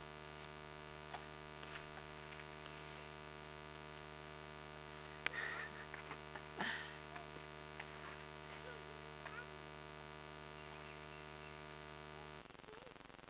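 A steady electrical hum with many evenly spaced overtones, starting abruptly and cutting off suddenly about twelve seconds in. Two short, sharp louder sounds occur near the middle.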